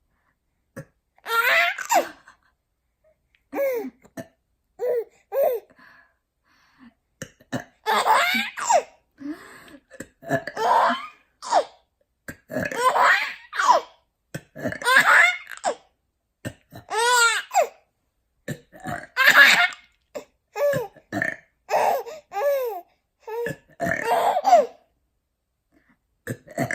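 Repeated burps, each answered by a baby's laughter and high squeals, in separate bursts with short pauses between them.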